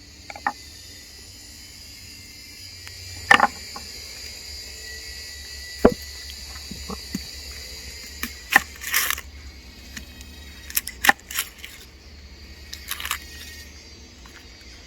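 Scattered sharp clicks, knocks and light clatter of camp cooking gear and ingredients being handled, over a steady high drone of insects.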